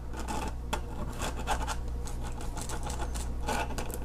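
Pencil scratching in short, irregular strokes on the laminated foam wing as it traces around a 3D-printed nacelle.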